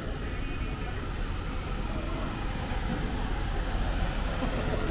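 Steady city street noise with a deep rumble, and faint voices in the background.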